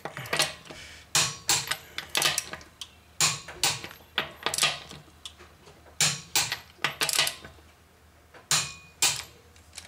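Click-type torque wrench on car wheel lug nuts, clicking as each nut reaches the set torque: sharp metallic clicks in groups of two or three, about eight groups with short pauses between.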